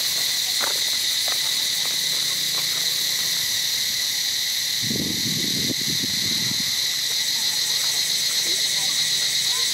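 Steady, high-pitched insect chorus droning in the trees, with a brief low rumble about halfway through.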